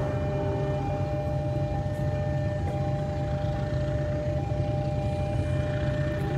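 Diesel locomotive engine running, a steady low rumble with a few steady whining tones above it.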